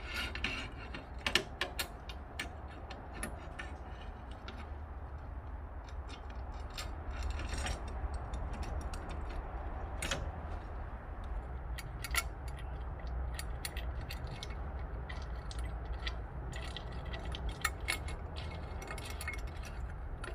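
Scattered light clicks and taps of metal parts and a glass pane being handled as the glass is offered up to a wood-stove door to check its fit, over a low steady hum.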